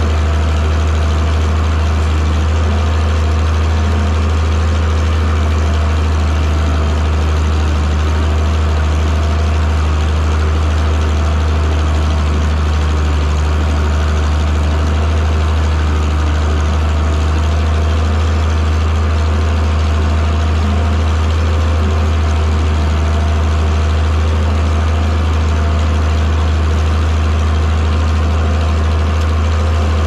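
International Harvester 826 tractor engine running steadily with a deep, even drone while it pulls a cultivator through corn rows.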